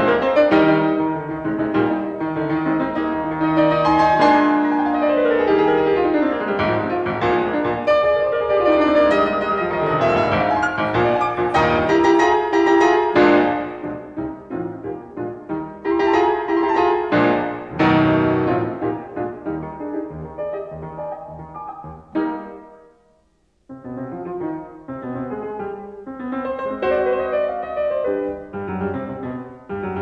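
Piano music, a steady run of single notes and chords, that stops for about a second roughly two-thirds of the way through and then starts again.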